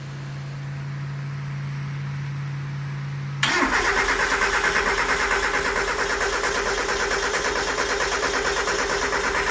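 A steady low hum for about three seconds, then the starter of a 1993 Mazda Miata's four-cylinder engine cranks it over with an even, rapid chugging for about six seconds.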